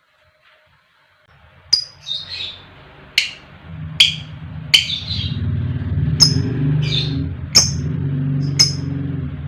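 Lovebird giving short, sharp, high-pitched chirps, about one a second, after a second or so of near silence. A low steady hum runs underneath from about four seconds in.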